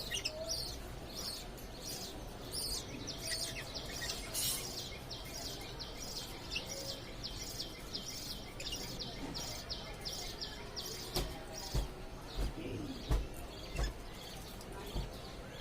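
Parrot chirping in a fast, steady series of short high chirps, about three a second. Several dull low thumps come near the end.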